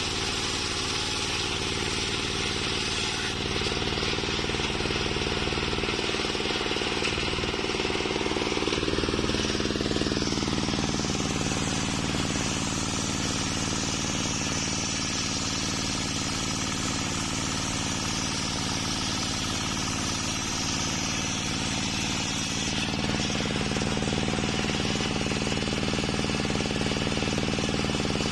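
Homemade engine-driven table circular saw ripping a waru (sea hibiscus) log lengthwise: the engine runs steadily under load while the blade cuts continuously through the wood.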